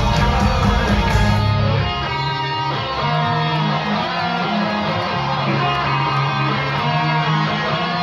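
Live rock band playing loudly. The low end and drum hits drop out about a second and a half in, leaving an electric guitar strumming on its own.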